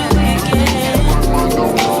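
Music: a dance track with deep held bass notes that change every half second or so under a steady beat.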